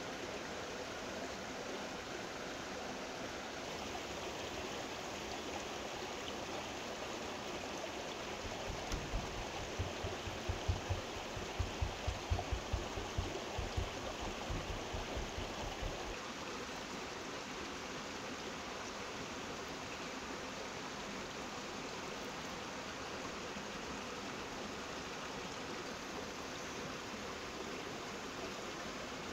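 Steady rushing of a mountain stream. In the middle a run of low thumps lasts several seconds.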